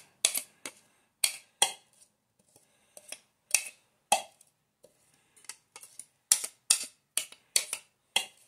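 Irregular sharp clicks and taps, about two a second, as a glass chopper bowl is knocked and scraped to empty chopped parsley into a mixing bowl.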